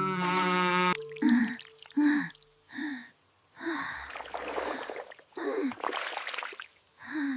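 A cartoon character's voice gasping and panting: a run of short voiced breaths, each falling in pitch, with a breathier stretch in the middle.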